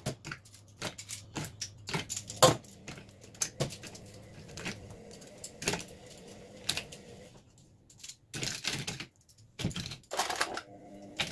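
Makeup brush handles clicking and clattering against each other and the plastic cup as they are dropped in one by one, bristles down. The clicks are irregular, with a short pause about two thirds of the way through.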